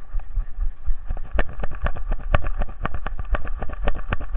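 Knocks and clicks from a camera strapped to a running dog, a rapid, uneven few per second, over a steady low rumble of wind and movement.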